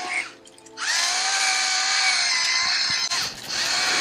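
Battery-powered electric salt mill whirring as it grinds sea salt. The motor stops briefly near the start, then spins up again with a rising whine about a second in and runs steadily, dipping briefly near the end.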